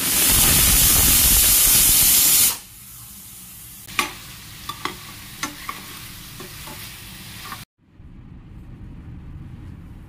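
Stovetop pressure cooker whistling, a loud hiss of steam venting for about two and a half seconds. Then a metal spoon stirring food as it fries in a pan, with sizzling and a few sharp clicks of the spoon on the pan, cut off abruptly about three-quarters of the way through.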